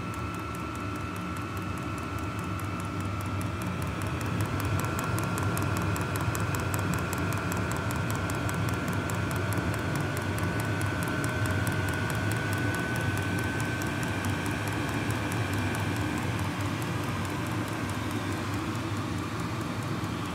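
Diesel air heater running steadily: the blower whirs with a steady whine that rises slightly about halfway through, over a low rumble from the burner. The fuel dosing pump ticks in a fast regular rhythm, about four a second. The heater is running properly and putting out hot air.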